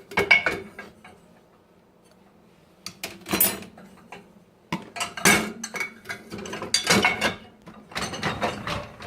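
Dishes and cookware clattering and clinking as they are handled and set into dishwasher racks, in irregular bursts with a short lull about a second in.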